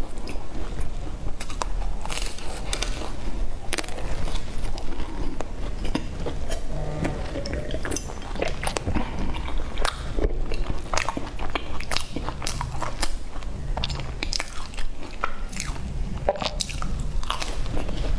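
Biting into and chewing a flaky, sesame-topped baked pastry, with many small crisp crackles of the crust throughout.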